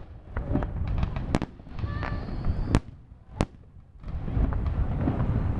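Fireworks display: aerial shells bursting with sharp bangs, the loudest about a second and a half, nearly three, and three and a half seconds in, over a constant low rumble that grows denser near the end.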